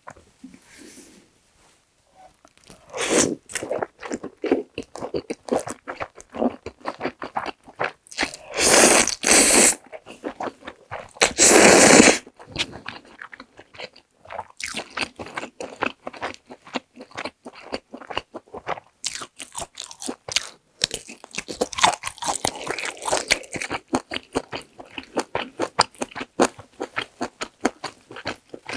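Close-miked eating of instant black-bean-sauce (jjajang) noodles: long, loud slurps of noodles about three seconds in and twice between about eight and twelve seconds in. Between them, and through the second half, come steady wet chewing and mouth smacks.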